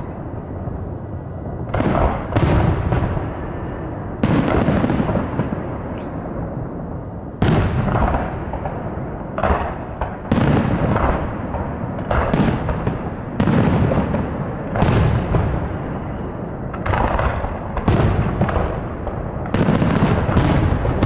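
Aerial firework shells bursting one after another, about one bang every second or two, each trailing off in a long rolling echo.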